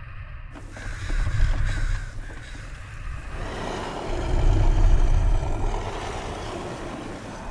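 Cartoon sound-effects track: a steady low rumble with a few short harsh calls between one and two seconds in. From about three and a half seconds in comes a louder wash of surf running up a shore.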